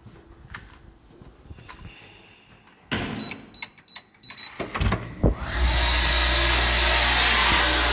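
Elevator machine-room equipment: the controller's relays and contactors clatter in a quick run of clicks, then about five seconds in the elevator motor starts up and runs loud and steady with a low hum and hiss.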